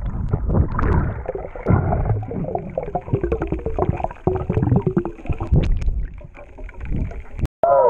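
Water sloshing and gurgling, with wavering muffled tones in the middle. The sound drops out for an instant near the end.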